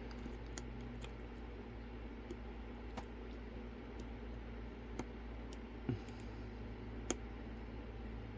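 Faint, scattered metallic clicks of lock picks and a tension wrench working the pins of a Lockwood Twin padlock, with a sharper click about seven seconds in, over a steady low hum.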